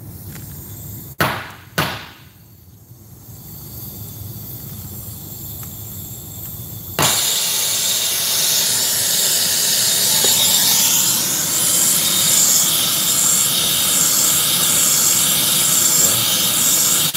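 Hand-held brazing torch being lit: two sharp clicks, a faint hiss rising, then about seven seconds in the flame catches suddenly and burns with a steady loud rushing hiss as it heats a copper refrigerant-line joint for brazing.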